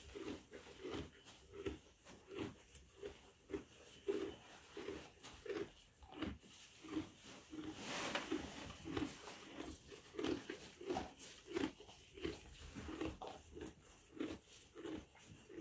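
Miniature donkey chewing hay at a feed tub, a steady rhythmic crunching of about one and a half chews a second, with a short breathy rush about halfway through.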